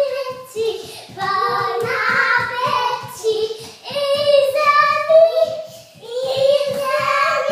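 A young child singing in high, held notes, with quick little footsteps on a hard floor underneath.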